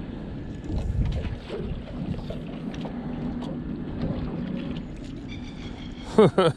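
Wind on the microphone and water moving around a small boat, a steady low rushing with scattered faint ticks. A short, loud sound with a gliding pitch comes about six seconds in.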